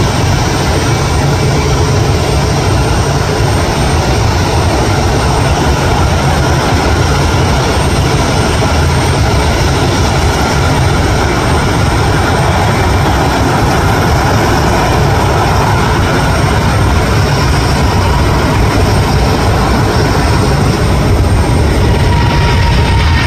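Airliner jet engines running steadily, with a deep rumble under a broad rushing noise.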